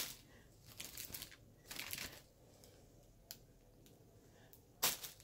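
Clear plastic sleeve around an artificial rose crinkling as it is handled, in a few short rustles with quieter gaps between, the sharpest one near the end.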